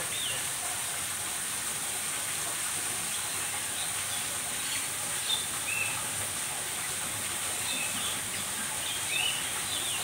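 Short, high chirps of small birds scattered through a steady hiss, with a few around the middle and a small cluster near the end.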